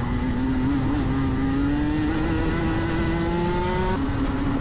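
Rotax Max 125 cc single-cylinder two-stroke kart engine accelerating hard, its pitch climbing steadily. About four seconds in the pitch drops abruptly, then starts climbing again.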